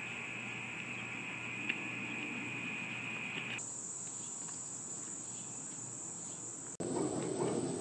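Crickets or other insects singing a steady high drone that switches abruptly to a higher-pitched drone about halfway through. Near the end it cuts to a louder, rougher sound.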